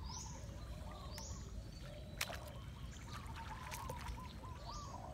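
Water sloshing and splashing from footsteps wading through shallow floodwater, with birds calling in the background.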